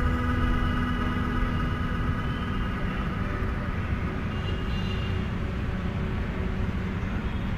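Steady low rumble of outdoor road traffic, with faint music dying away over the first few seconds.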